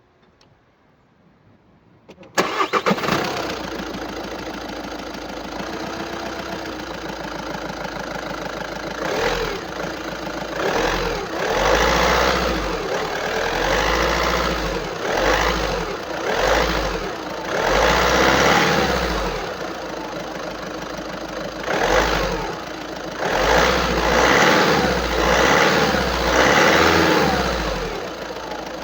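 VW Passat B7's 1.6 TDI four-cylinder diesel engine cranking and starting about two seconds in, then idling and being revved repeatedly in short blips. The uploader takes the engine's uneven noise for the sign of a clogged diesel particulate filter (DPF).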